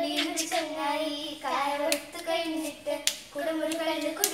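A young girl singing a slow tune in long held notes, with sharp hand claps keeping time about once a second.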